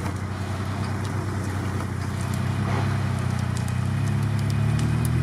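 Lifted UAZ off-roader on large mud tyres driving slowly, its engine running at a steady low speed and growing gradually louder as it approaches.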